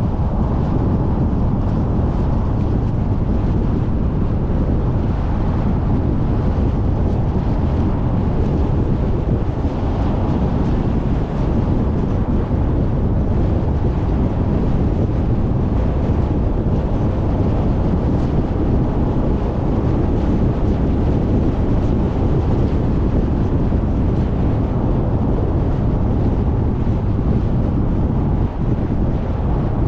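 Steady road and wind noise of a car driving at speed on a paved road, a low even noise without breaks.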